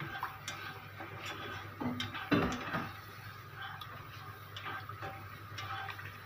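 A plastic spatula stirring and scraping a thick simmering sauce in a nonstick frying pan: irregular soft ticks and knocks against the pan, loudest a little past two seconds in, over a low steady hum.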